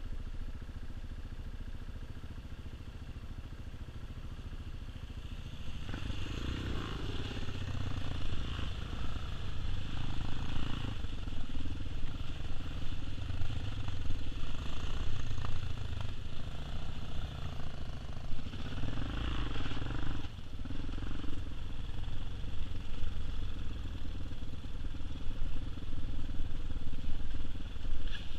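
Tao Tao TBR7 dirt bike's single-cylinder engine idling, then pulling away about six seconds in and running on at changing throttle over a rough, leaf-covered trail.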